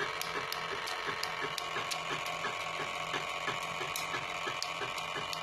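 Homemade magnet-wheel and swing-hammer motor running on 12 V DC. It ticks in an even rhythm of about five or six beats a second over a steady whine, with sharper clicks about every half second.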